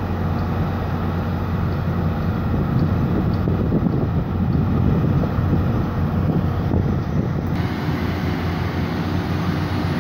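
Tri-Rail diesel locomotive idling at the platform, a steady low hum, with wind buffeting the microphone.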